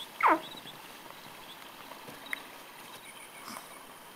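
A waking toddler gives one short, high whine that falls sharply in pitch just after the start. A faint click follows about two seconds later.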